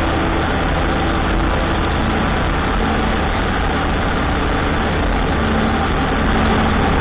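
Cessna 182A's six-cylinder Continental O-470 engine and propeller running steadily in cruise flight, with a constant rush of air.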